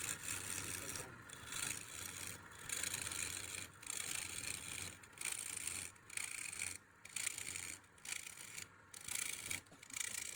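A hand tool scraping wood in about ten steady strokes, roughly one a second with short breaks between them. The sound is rough and hissy rather than pitched.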